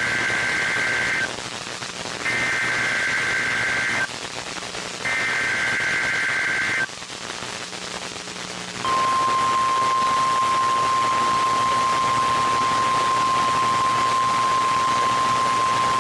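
NOAA Weather Radio Emergency Alert System test received over hiss: the end of one SAME digital header burst and two more, each a buzzy two-pitch warble under two seconds long with about a second between them. About nine seconds in, the steady 1050 Hz warning alarm tone starts and holds. This header and alarm tone open a required weekly test.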